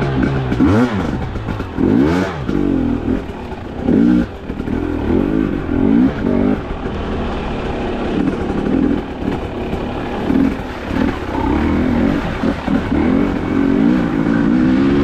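Fuel-injected two-stroke enduro motorcycle engine of a 2022 Husqvarna TE250i, ridden on a trail: it revs up and down with the throttle, its pitch rising and falling every second or two.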